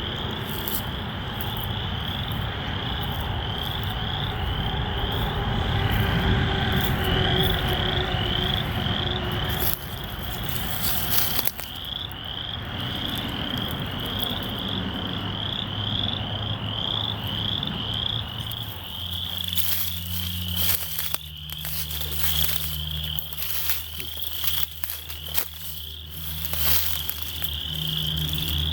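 Chorus of frogs calling: many short, high, rising calls repeated a few times a second, overlapping without pause. A steady low hum joins about two-thirds of the way in.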